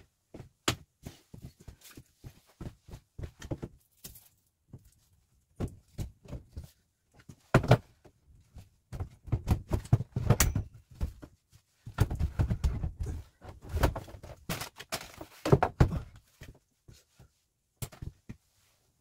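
Irregular knocks, thuds and clatter of objects and materials being handled and set down in a small enclosed space, busiest in the middle and latter part, with a few sharp heavy clunks.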